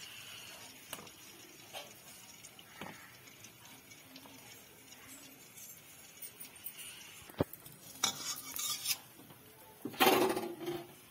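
Metal kitchen utensils clinking and clattering against pots: scattered light clicks, a sharp click about seven seconds in, then louder clattering near the end.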